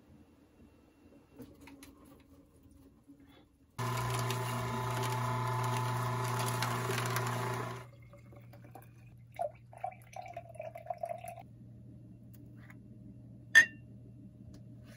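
Water running from a tap, starting abruptly about four seconds in and shut off about four seconds later, leaving a faint low hum. A single sharp click comes near the end.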